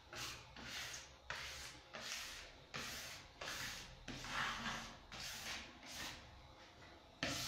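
Repeated rubbing strokes, about one every two-thirds of a second: a cloth rubbed by hand over a glued printed flex sheet, smoothing the 3D image down onto the floor the way wallpaper is pressed flat.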